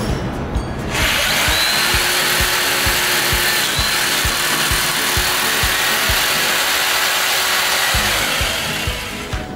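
Electric jigsaw cutting through 1.5-inch PVC pipe: the blade's cutting noise starts suddenly about a second in and runs steadily, fading out near the end. Background music with a steady beat plays underneath.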